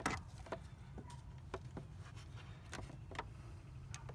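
Hand-held plastic vacuum pump being squeezed on the hose of an EVAP purge valve, giving a few faint irregular clicks as its trigger is worked, over a low steady rumble.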